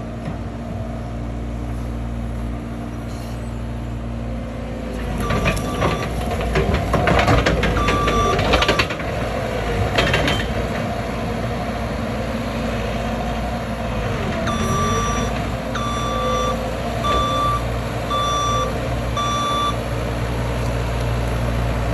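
John Deere 324E skid steer's diesel engine running while the machine is worked, with its backup alarm beeping whenever it reverses: a few beeps early on, then a steady run of about one beep a second near the end. In the middle the running gets louder, with rattling and clatter as the machine moves.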